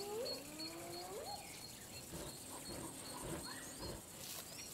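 Spotted hyenas calling faintly: two rising, whoop-like calls in about the first second, with soft high chirps repeating behind them.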